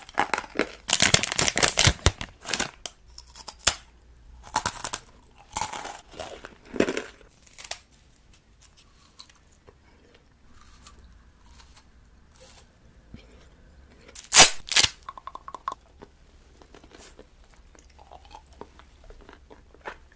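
Close-miked eating: crunchy bites and chewing in irregular bursts, with tearing, crinkly noises; the loudest bursts come about a second in, around five to seven seconds in, and a sharp one near fifteen seconds.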